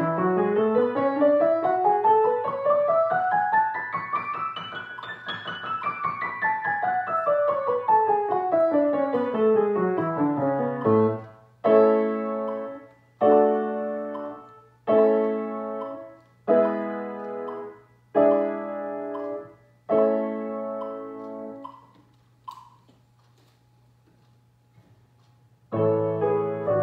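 Grand piano played: a scale in two voices runs up and back down. Then come six chords struck about a second and a half apart, each left to ring and die away. After a pause of a few seconds, playing resumes near the end.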